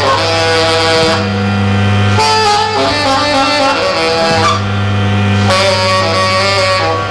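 Live improvised trio music: a harmonium holds steady chords while a bass plays long low notes that come and go every second or two, and a saxophone plays wavering lines above.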